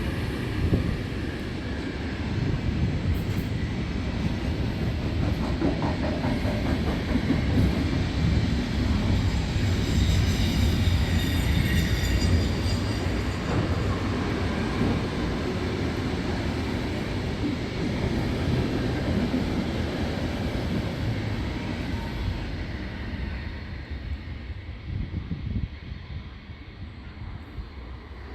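A train passing close by on the rails, a heavy continuous rumble that builds to its loudest about ten seconds in, with a faint high whine over it, then fades away over the last few seconds.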